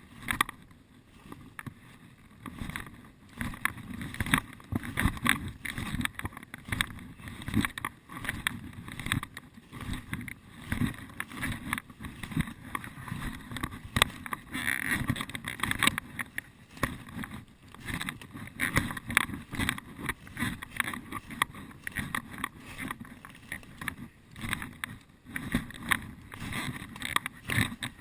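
Irregular crunching and rustling of someone moving on foot through forest undergrowth.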